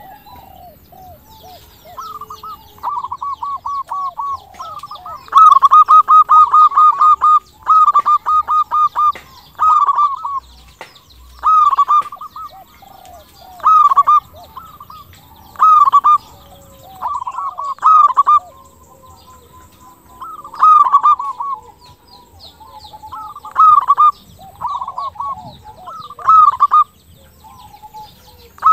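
Zebra dove (perkutut) cooing: a phrase of rapid, clipped notes about every two seconds, loudest about five to seven seconds in.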